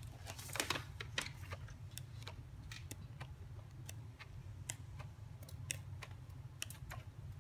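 Pages of a paperback activity book being flipped by hand: a string of light paper flicks and rustles over a steady low hum.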